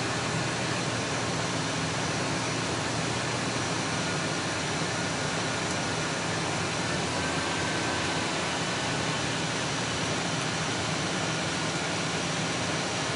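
Ford Expedition V8 idling with a low steady hum under an even rushing hiss of flush water overflowing from the degas bottle through a PVC pipe into a plastic bucket.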